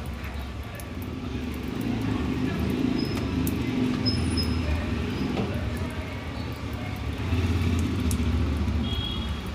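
A low motor rumble that swells louder twice.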